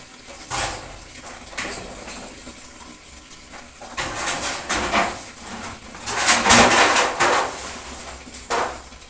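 Irregular clatter and splashing, like pots and water being handled at a wash basin: a few short knocks early on, then a busier stretch of clattering and splashing from about four seconds, loudest around six to seven seconds in.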